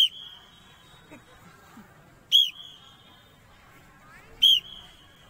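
Three short, loud blasts of a sports whistle, about two seconds apart, each trailing into a fainter held note.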